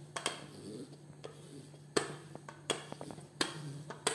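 Rolling pin working a thin sheet of baklava dough on a starch-dusted granite countertop, with a series of sharp knocks as the pin strikes the stone, over a faint steady hum.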